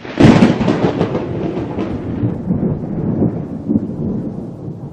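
Thunderclap sound effect: a sudden loud crack, then a long rolling rumble that slowly fades.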